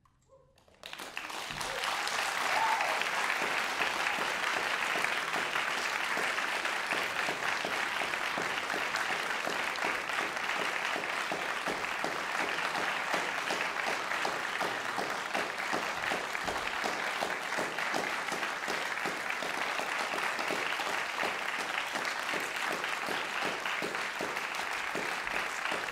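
Audience applause breaks out about a second in, after a brief silence, and keeps up steadily as a dense patter of many hands clapping.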